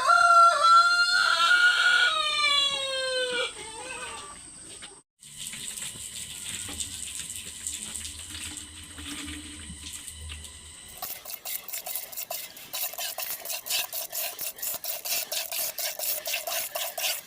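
A rooster crows once, a loud, long call falling in pitch. After a break there is a steady hiss with a low hum, then rhythmic strokes about three a second.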